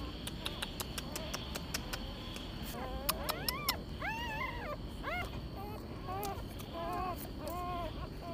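Newborn puppies squealing and whimpering in a string of short rising-and-falling cries, starting about three seconds in. Sharp faint clicks come before and under the first cries.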